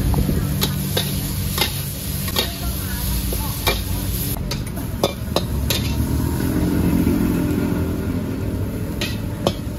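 Stir-frying in a wok: food sizzling while a metal spatula strikes and scrapes the pan in about a dozen sharp, irregular clanks. Underneath runs a steady low hum.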